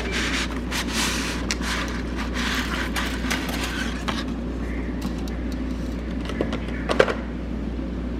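Cooking noises over a steady low hum: irregular hissy scraping strokes, with a couple of sharp clinks about seven seconds in.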